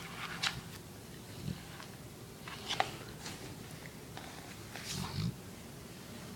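Chocolate Labrador snoring in his sleep: low snoring breaths about a second and a half and five seconds in, with sharp clicks between them, the loudest about three seconds in.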